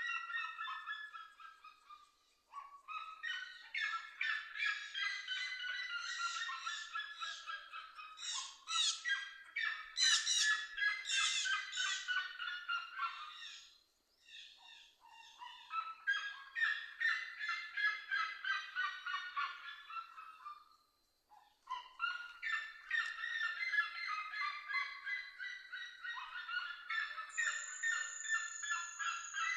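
Red-legged seriema calling: long rapid series of harsh yelps, each falling in pitch, in bouts several seconds long with brief pauses between.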